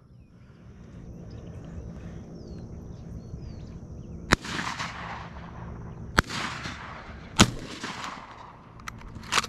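Three shotgun shots fired by two hunters at doves in flight, one of them a 12-gauge: the first about four seconds in, the next two about two seconds and one second after it. Each shot rings out briefly, and the last is the loudest. Two small clicks follow near the end.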